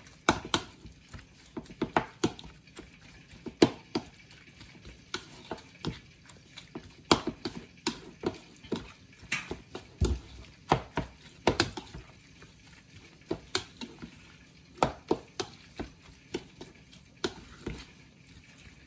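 A metal spoon stirring a moist chopped-lobster and grated-coconut mixture in a bowl, with irregular clicks and knocks as it scrapes and taps the bowl's sides.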